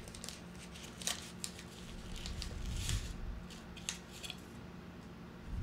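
A tea bag's wrapper being torn open and unwrapped by hand: scattered short crinkles, rustles and small clicks, the sharpest about a second in, near three seconds and near four seconds.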